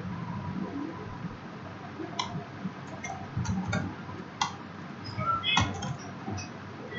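Scattered keystrokes on a computer keyboard: a handful of separate clicks, irregularly spaced and more frequent in the second half.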